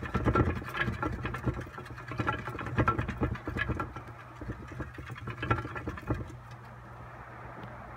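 Rain pattering, with irregular knocks and taps of drops for the first six seconds, then settling into a steady hiss. A low steady hum runs underneath.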